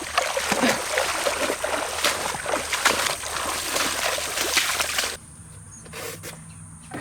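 Footsteps wading through shallow water, a continuous run of sloshes and splashes that cuts off suddenly about five seconds in.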